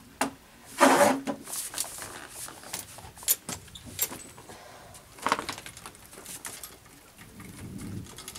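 Irregular handling noise of small bike parts: scattered sharp clicks and knocks, with a louder clatter about a second in and again a little after five seconds.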